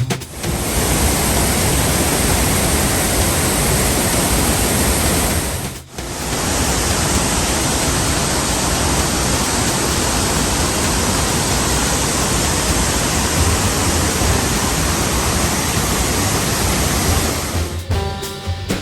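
Waterfall: steady, loud rush of falling water, with a brief drop about six seconds in. Music comes in near the end.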